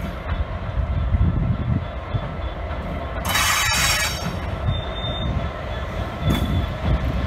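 GBRf Class 66 diesel locomotive passing at the head of a loaded aggregates train, its two-stroke V12 diesel engine running with a low rumble under the wheels on the rails. A brief loud hissing rush comes about three seconds in.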